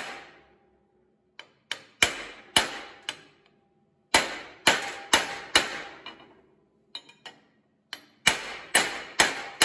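Ball-peen hammer striking a 26 mm steel socket that is used as a driver, tapping a new sealed ball bearing into a mini bike torque converter cover by its outer race. Sharp metallic blows, each with a short ring, come in bunches of three or four with a few lighter taps between them.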